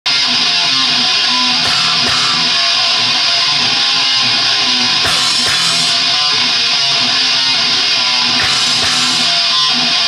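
Live heavy rock band playing loud: electric guitars, bass guitar and a drum kit, with cymbal crashes every few seconds.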